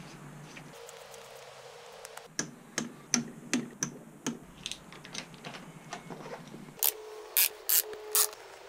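A series of sharp clicks and light taps: about six in a row a couple of seconds in, fainter ticks after, then four louder, crisp clicks near the end.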